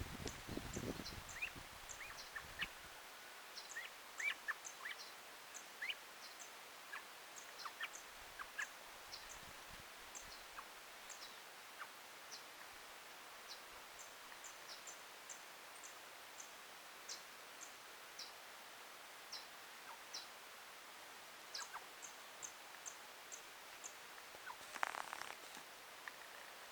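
Faint outdoor birdsong: many short, high chips and brief chirps from birds, scattered irregularly, with a low rumble in the first couple of seconds and one louder, harsher call-like sound near the end.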